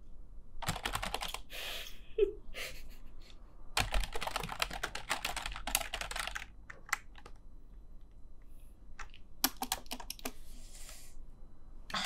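Typing on a computer keyboard: short bursts of quick key clicks, a longer dense run of rapid typing in the middle, then scattered single key taps with pauses between.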